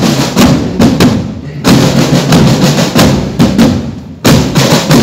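Parade marching-band drums, bass and snare, playing a steady marching beat of a little over two strokes a second.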